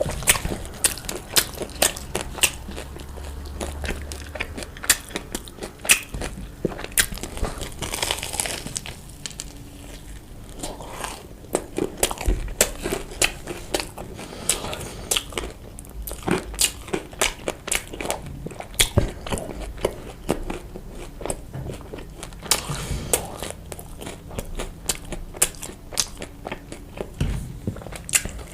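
Close-miked eating sounds: chewing and biting food, with many irregular sharp crunchy clicks and smacks.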